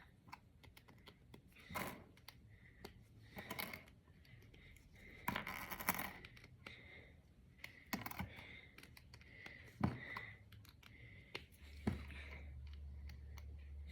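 Small plastic Brain Flakes discs clicking and rattling as they are handled and pushed together, in scattered sharp clicks and short clatters with a longer rattle partway through. A steady low hum starts near the end.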